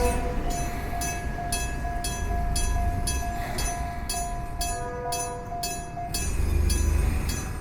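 Electric-bell level crossing alarm ringing, its hammer striking the bell about twice a second in a steady rhythm. A train's low rumble swells about six seconds in.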